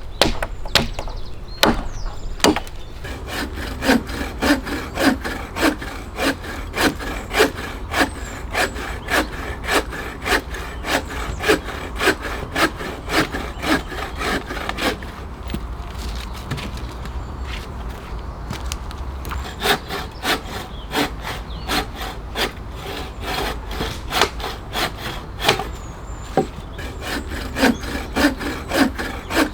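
Hand saw cutting through a log with even back-and-forth strokes, about two a second. The strokes grow fainter for a few seconds in the middle, then pick up again.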